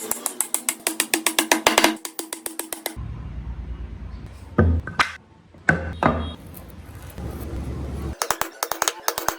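Background music with a fast percussive beat that drops out for a few seconds to a low hum with a couple of heavy hits, then comes back.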